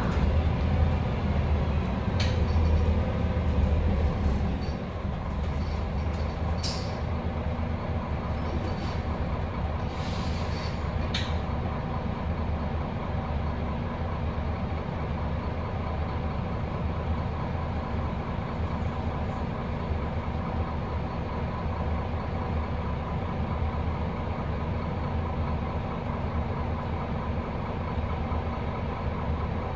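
City bus running, heard from inside the passenger cabin: a steady low engine hum, louder for the first four seconds and then settling to an even level. A few brief clicks and hisses come through in the first dozen seconds.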